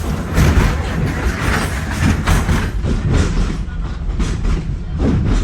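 Open-air park train (the Wildlife Express) rolling along its track, heard from aboard: a steady low rumble with the clickety-clack of wheels over rail joints.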